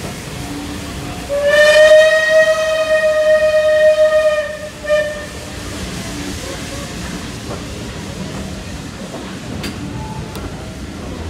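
Steam locomotive's whistle: one long blast of about three seconds at a steady pitch, then a short toot straight after, over steady background noise.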